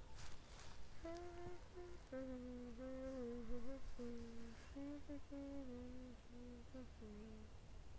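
A person humming a tune softly: a run of held notes stepping up and down, starting about a second in and stopping shortly before the end.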